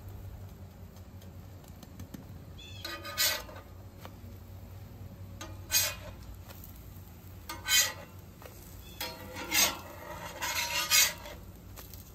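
Metal spatula scraping and sliding under pancakes on a steel flat-top griddle as they are flipped. There are about half a dozen short scrapes, a couple of seconds apart at first and coming closer together near the end, over a low steady hum.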